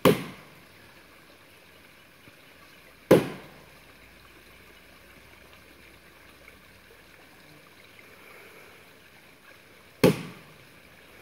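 Three axe blows into the trunk of a large dead tree that is nearly cut through, each a sharp knock with a short ring after it: one at the start, one about three seconds in, and one near the end. A creek runs faintly underneath.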